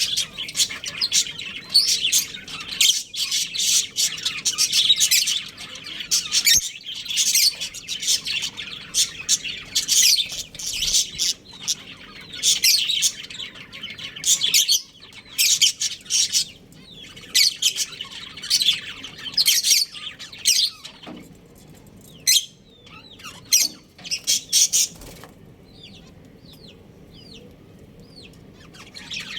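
Budgerigars chirping and chattering in quick, dense bursts. After about twenty seconds the chatter thins out to scattered calls and a few short whistles.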